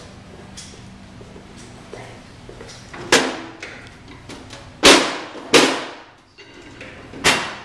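Four sharp metal-on-metal knocks, each ringing briefly, spread over a few seconds. The loudest comes about halfway through. They come from tools or parts being handled at a steel workbench while guide tubes are readied for driving into a pump power frame.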